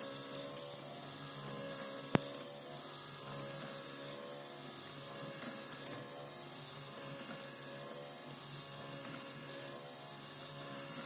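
Small battery-powered DC gear motor whirring steadily as it turns a crank wheel, with one sharp click about two seconds in and a few fainter ticks.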